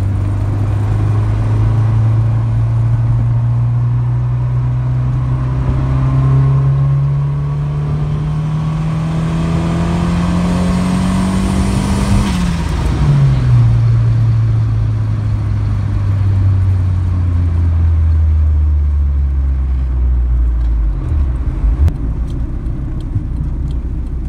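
Turbocharged Honda Civic engine heard from inside the cabin. Its note rises steadily as the car accelerates, drops sharply about halfway as the throttle is let off, then falls steadily as the car slows under hard braking, part of bedding in new drilled and slotted rotors and pads.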